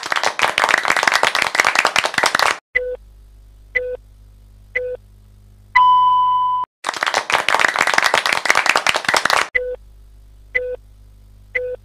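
Quiz sound effects: a burst of applause lasting a few seconds, then three short beeps about a second apart and one longer, higher beep. The applause and the three short beeps come round again.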